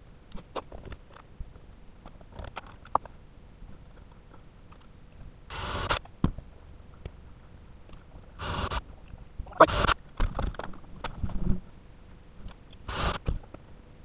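Ryobi cordless drill running in four short bursts, driving small screws into the wooden door frame to fix a deadbolt strike plate, with light clicks and knocks of handling between the bursts.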